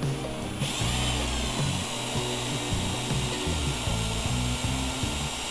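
Cordless brushless drill, the Milwaukee M12 Fuel 2504-20, spinning up under the trigger about a second in and then running free at steady full speed with a high motor-and-gear whine. Background music plays underneath.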